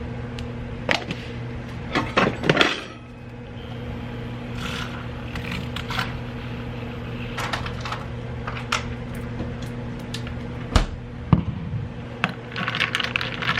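A steady low hum, as from a car engine idling heard inside the cabin, with scattered clicks, knocks and rustles of a phone being handled, a cluster of them about two seconds in.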